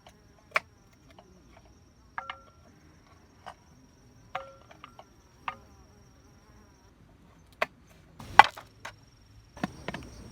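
An insect's steady high-pitched trill that stops about two-thirds of the way through, under scattered sharp knocks and clacks of hard objects. A couple of the knocks leave a brief ring, and the loudest knock comes late.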